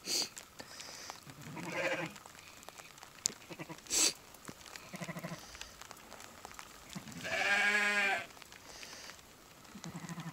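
A ewe bleating near her newborn lamb: one long, loud bleat about seven seconds in, with a few short, lower calls around it, a warning aimed at a dog beside the pen. Two sharp knocks sound near the start and about four seconds in.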